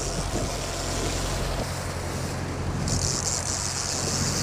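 Boat engine running with a steady low hum, under wind on the microphone and the wash of water; the hiss of wind and water swells about three seconds in.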